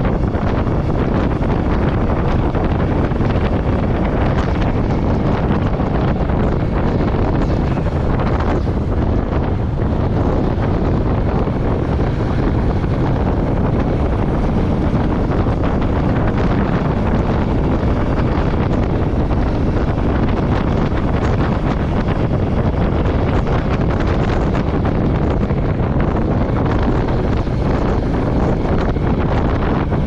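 Royal Enfield Meteor 350's single-cylinder engine running at a steady cruise, heard under heavy wind buffeting the microphone at road speed.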